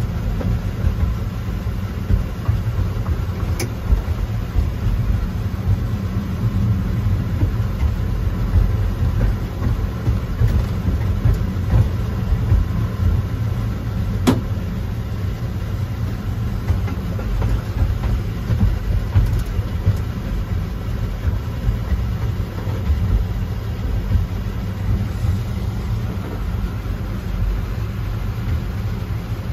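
Ride-on mini train running along its track, heard from inside its cab: a steady low rumble, with two sharp clicks, one a few seconds in and one about halfway.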